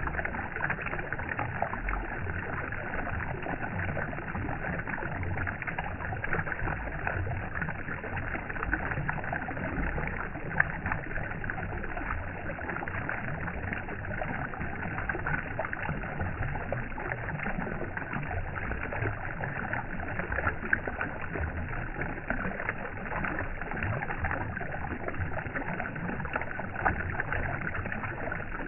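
Steady rushing water with a fine crackle running through it, even in level throughout.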